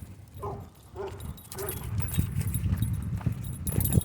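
Three short dog barks in the first two seconds, each with a clear pitch, followed by a steady low rumble of movement and small knocks.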